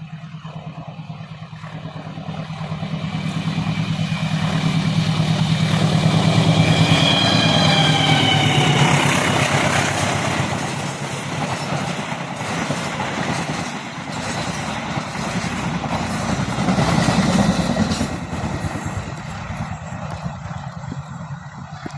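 Diesel-hauled passenger train passing: the locomotive's engine hum grows louder and peaks about seven seconds in, then the carriages' wheels clatter steadily over the rails, with sharper clicks from rail joints near the end.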